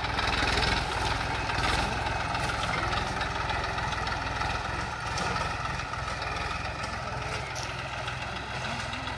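TAFE 45 DI tractor's three-cylinder diesel engine running steadily as it pulls a plough through the soil, growing a little fainter as the tractor moves away.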